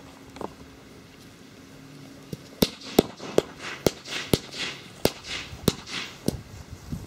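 Running footsteps thudding on grass, about two to three strides a second, starting about two and a half seconds in and growing loud as the runner nears: someone running away from a lit firecracker fuse.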